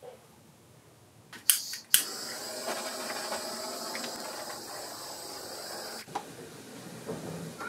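Two sharp clicks of a handheld butane torch's igniter, then the torch's flame hissing steadily for about four seconds over wet epoxy resin before it shuts off suddenly.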